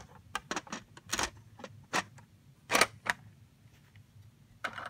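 Plastic Lego pieces clicking and clattering against each other as a Lego train car's roof sections are handled and fitted back on: a string of irregular sharp clicks, the loudest a little under three seconds in.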